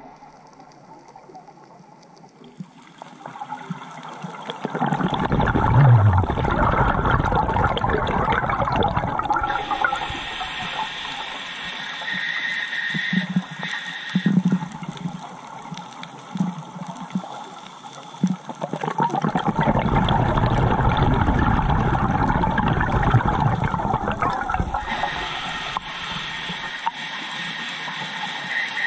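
Scuba diver's exhaled bubbles from a regulator rushing and rumbling past the underwater camera housing. There are two long exhalations, one starting about five seconds in and one about twenty seconds in, each lasting about five seconds, with a quieter steady hiss between them.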